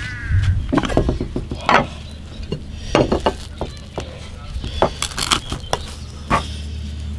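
A metal spoon scraping and knocking against an aluminium cooking pot as cooked rice is scooped out, a run of irregular sharp clinks and scrapes.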